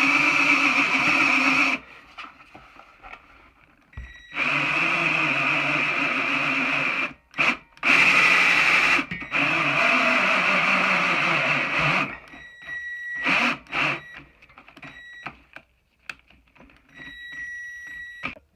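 Cordless drill running in reverse with a pipe nipple extractor bit, grinding into the broken threaded stub of an air compressor's male coupler as the bit works its way in to grab it. It runs in four long bursts, then lighter, intermittent running with a thin whine near the end.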